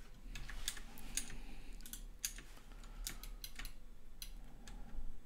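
Computer keyboard keystrokes: irregular sharp clicks, a few each second.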